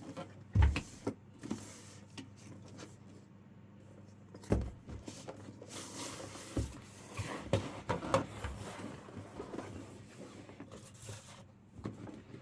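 Keys being pressed on a Keychron Q6 HE keyboard with Gateron double-rail magnetic switches: irregular clacks with a few heavier thumps, and a quicker run of keystrokes in the middle.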